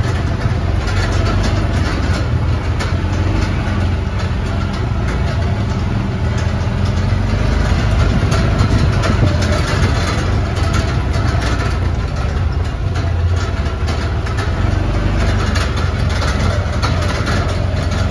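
Engine of a small, noisy jeep running steadily as it is driven along.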